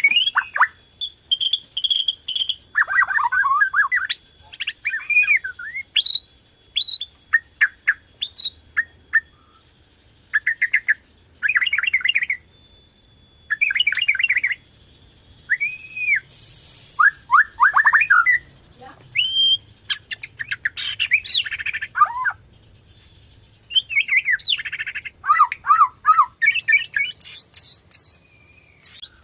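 Bornean shama (murai batu Borneo) singing in full song (gacor): a long run of short, varied phrases of clear whistles, gliding notes and rapid trills, separated by brief pauses.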